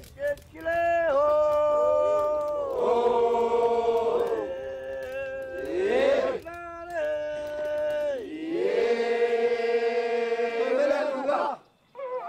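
A group of men chanting in long, drawn-out calls, each voice sliding down in pitch into a held note, with several voices overlapping. The chant breaks off briefly near the end.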